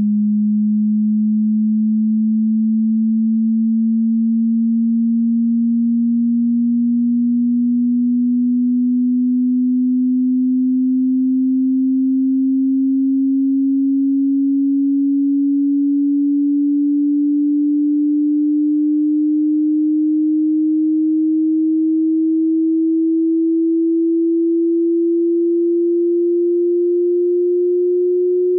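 A single pure sine tone gliding slowly and steadily upward in pitch, from a low hum toward a slightly higher tone: a hearing-test frequency sweep.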